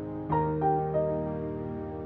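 Background instrumental music, gentle and keyboard-like. About a third of a second in, a new phrase begins: three notes step down in pitch over a held low note.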